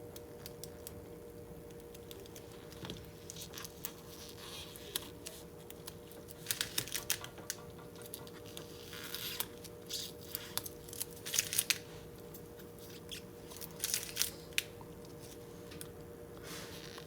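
Thin plastic film being handled and peeled: short rasping scrapes, crinkles and small clicks in irregular bursts, busiest in the middle, over a faint steady hum.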